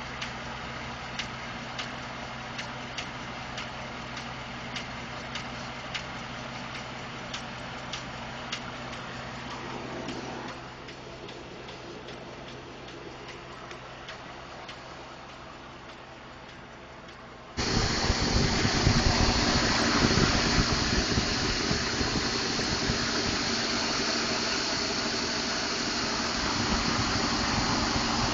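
Ford F150 5.0 V8 idling with a regular, sharp knock repeating about every half second; the owner has been told it is normal engine noise, from the injectors or the fuel pump. The knocking fades about ten seconds in, and later a much louder steady rushing noise starts suddenly over the engine.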